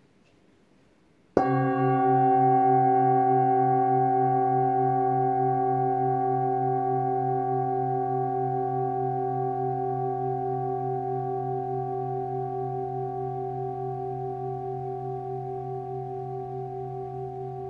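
Old Tibetan singing bowl struck once with a padded mallet about a second in, then ringing with several steady overtones and a slow wobble in its deepest tone, fading gradually.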